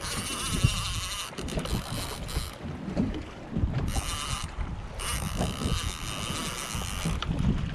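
A fishing reel whirring in three stretches that start and stop sharply, the longest about two seconds, over wind buffeting the microphone and water slapping a small boat.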